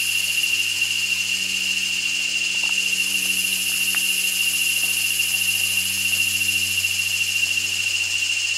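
Steady high-pitched drone of forest insects, with a faint low steady hum underneath and a few faint clicks.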